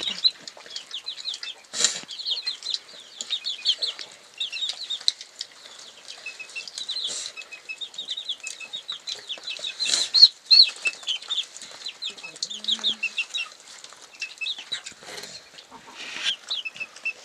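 Chicken chick peeping: a steady stream of short, high, falling peeps, several a second, with scattered light clicks.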